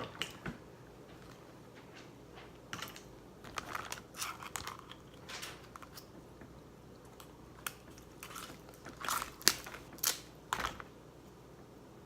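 Someone eating seafood: irregular crunches, cracks and snaps of shellfish shells being broken open, with chewing, in short clusters. The sharpest cracks come about nine and a half and ten and a half seconds in.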